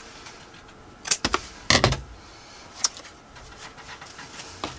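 A few sharp clicks and clatters of small craft tools and paper being handled on a work table, the loudest cluster about one to two seconds in, with single clicks near three seconds and near the end.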